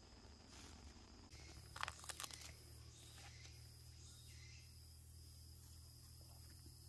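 Rotting palm-trunk fibre being torn and broken apart by hand: a quick cluster of dry crackles and snaps about two seconds in, then fainter picking and rustling.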